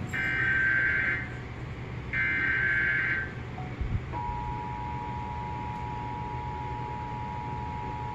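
Emergency Alert System test signal: the last two of the three SAME data-header bursts, each about a second of shrill digital screech. About four seconds in, the steady two-tone EAS attention signal begins.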